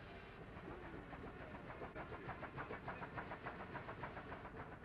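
Steam mill machinery running: a fast, even rhythmic clatter of about seven beats a second that comes up about two seconds in and eases near the end, over a low steady rumble.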